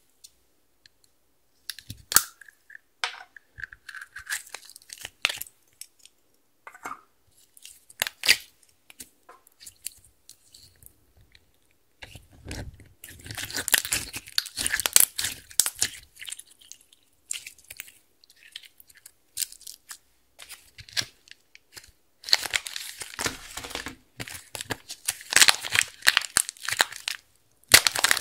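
Hands squishing and kneading clear slime loaded with glitter, beads and eyeshadow powder: crackling and popping, with scattered light pops at first and two longer stretches of dense crackle later. Right at the end comes the crinkle of plastic wrap being peeled off a piece of yellow slime.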